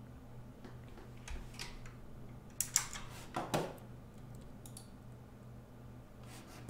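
A handful of scattered computer keyboard clicks and taps, the loudest cluster about three seconds in, over a faint steady low hum.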